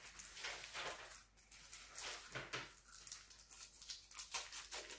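Faint, irregular rustles and light taps of a multi-battery charging hub and its plastic packaging being handled.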